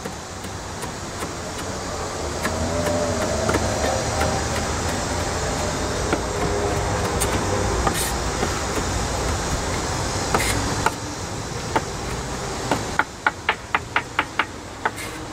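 Kitchen knife chopping cilantro on a wooden cutting board: a few scattered taps, then a quick even run of about ten chops, about five a second, near the end. Under it, a steady engine rumble swells and dies away after about eleven seconds.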